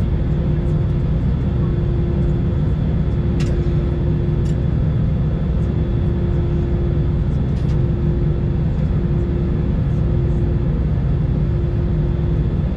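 Cabin noise inside an Airbus A320 on the ground, with its engines running: a steady, dense rumble and a hum that drops out briefly every couple of seconds. A few faint clicks sound over it.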